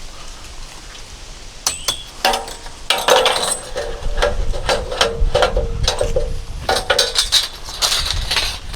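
Repeated metal clanks and clinks, a string of sharp knocks starting a little under two seconds in, some leaving a brief ringing tone.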